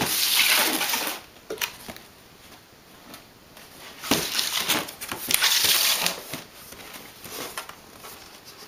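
Cardboard box and packaging being handled, rustling and scraping in a few bursts: one in the first second, and two between about four and six seconds in, with a few light knocks between.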